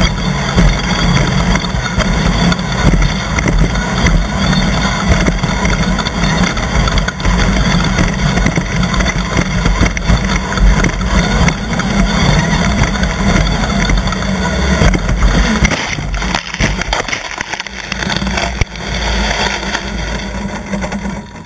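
Off-road race car engines running, a loud, continuous rough noise that thins and wavers unevenly from about two-thirds of the way through.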